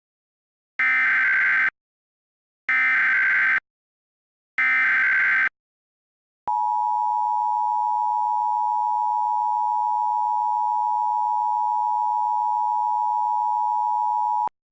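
Emergency Alert System tones. Three short bursts of SAME header data come about a second apart, each lasting roughly a second, followed by the steady two-tone EAS attention signal for about eight seconds, which cuts off suddenly. Together they mark the start of an emergency alert broadcast.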